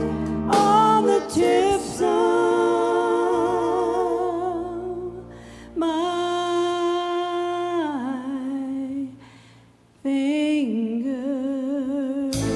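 A woman singing a slow country ballad live, holding long notes with a wide vibrato over soft band backing. The music drops away almost to silence just before ten seconds in, she comes back with another held phrase, and the full band comes back in at the very end.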